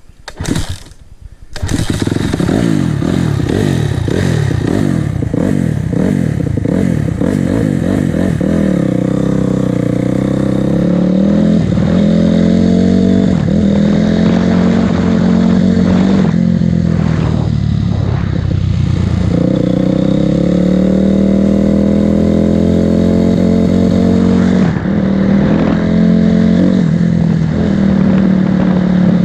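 Freshly rebuilt Honda CRF250R single-cylinder four-stroke dirt bike engine. It catches after a couple of short bursts about two seconds in, then runs loud, climbing to a steady higher pitch as the bike rides on. The pitch dips briefly about halfway through and then picks up again. The engine is still not running right, and the owner suspects the valves.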